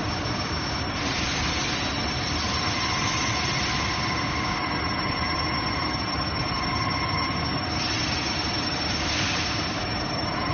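Steady machine-shop noise: a constant mechanical whir with a high-pitched whine over it, the lower whine tones fading in and out.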